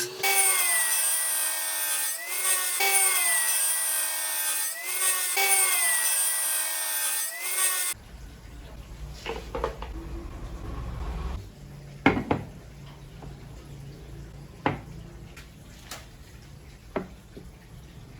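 Hand saw cutting with steady back-and-forth strokes, the blade ringing and changing pitch with each stroke. About eight seconds in it cuts off, leaving only a low hum and a few scattered knocks and clicks.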